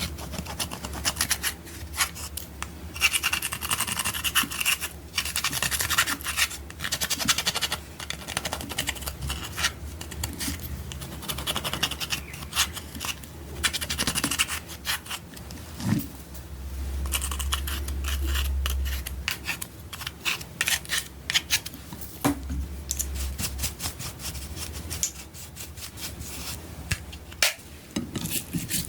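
Slime being worked and mixed, making dense runs of sticky crackling and scratchy clicks that come and go in stretches of a few seconds.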